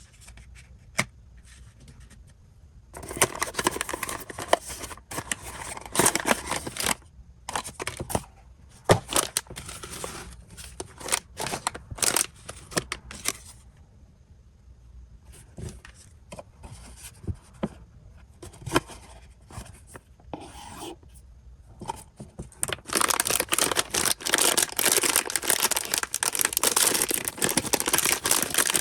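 Blind-box packaging being torn open and crinkled by hand, with bursts of tearing and rustling, scattered clicks, and a long stretch of steady crinkling near the end.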